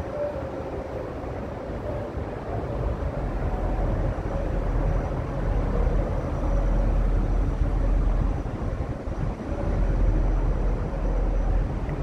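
Wind buffeting the microphone on a high open rooftop: a low, gusty rumble that grows louder a few seconds in, over a steady hum.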